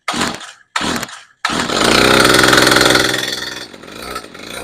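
Two pulls of the starter cord, then the Stihl FS55 RC trimmer's two-stroke engine catches about a second and a half in, revs up sounding really super muffled, and sinks back. The engine is straining against a seized or binding drive shaft, which loads it heavily.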